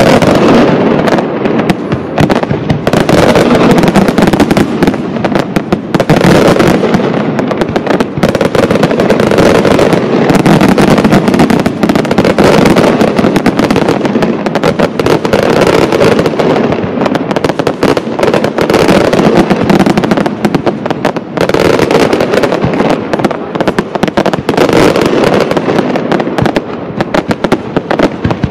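Aerial fireworks display firing without a break: a dense, continuous barrage of shell bursts and rapid crackling, loud throughout.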